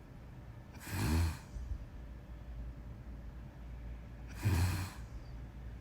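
A sleeping person snoring: two snores about three and a half seconds apart, each about half a second of low buzzing with breathy noise.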